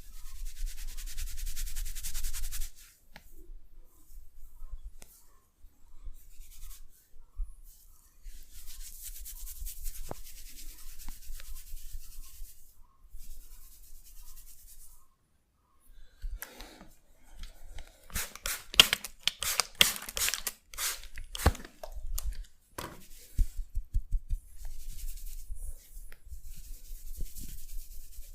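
Hands rubbing and kneading over hair and skin in a head massage, a dry hissing friction that comes and goes. About two-thirds of the way through comes a quick run of sharp clicks.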